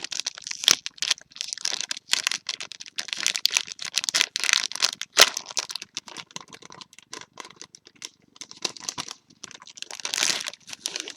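Plastic packaging crinkling and rustling in irregular bursts as it is handled and pulled open.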